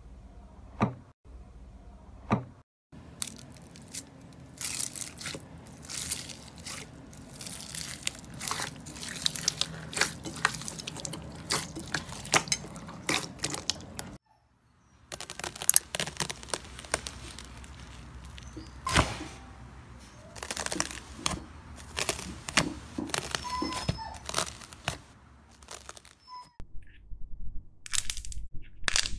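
Slime being pressed, poked and squeezed by hand, with dense runs of quick crackles, clicks and squelches. The sound stops for about a second just after the middle, then carries on with a different slime.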